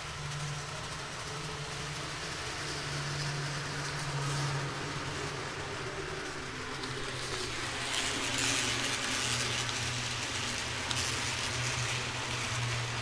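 Toy train running on a three-rail model railroad layout: a steady motor hum with a hiss of wheels on track, the hiss growing louder about eight seconds in.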